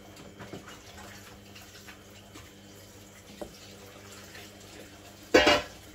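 Faint kitchen sounds: a spatula scraping a stainless steel bowl, with small clicks and water running from a tap in the background. About five seconds in, a short loud burst of noise.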